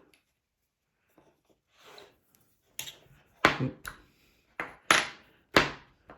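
Ceramic sharpening rods of a Lansky Turnbox clacking against its wooden box as they are pulled out and set into the angle holes: about six sharp knocks with a short ring, starting about three seconds in.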